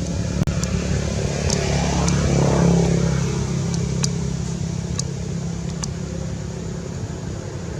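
A steady low motor hum that swells, loudest about two to three seconds in, then slowly fades, with a few sharp clicks.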